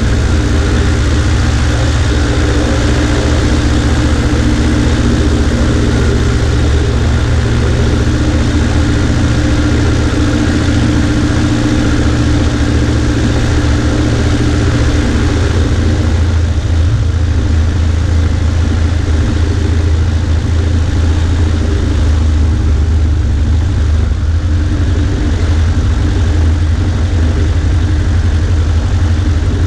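Cessna 140A's four-cylinder piston engine and propeller running steadily in cruise flight, a loud even drone with rushing air noise over it.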